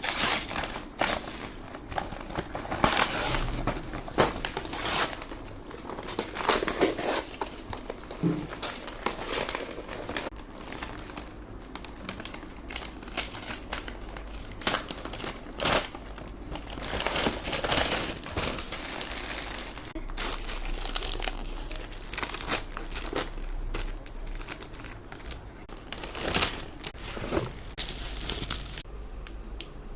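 Gift packaging crinkling and rustling as it is handled and opened by hand: irregular crinkles with louder flurries every few seconds.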